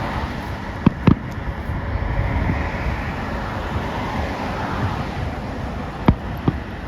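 Consumer fireworks going off, four sharp bangs: a pair about a second in and another pair near the end, over a steady rumbling background noise.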